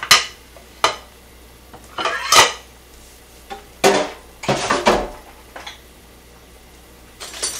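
Plates, a plastic cutting board and a utensil being picked up and set down on a stone countertop: a string of sharp clacks and clatters at uneven intervals, the loudest at the start and about two and a half seconds in.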